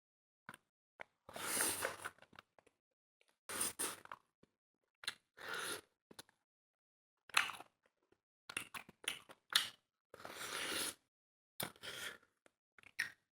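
Close-up eating sounds: chewing and crunching in separate short bursts with dead silence between them.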